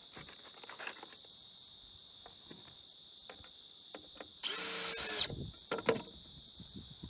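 Cordless drill driving a screw into a pressure-treated wooden stair tread in one steady run of about a second, midway through. Scattered knocks from handling the boards come before and after it.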